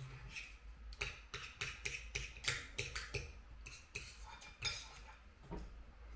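Knife and fork clinking and scraping on a dinner plate while cutting up food, in a quick run of short strokes from about a second in to nearly five seconds.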